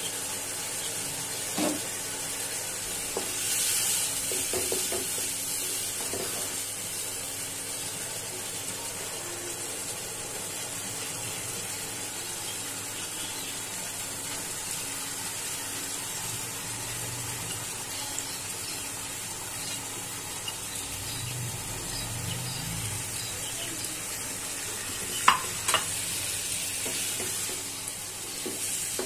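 Sliced onions and spices frying in oil in a non-stick kadai, sizzling steadily as red lentils are stirred in with a spatula. A few knocks of the spatula on the pan, two sharp ones near the end.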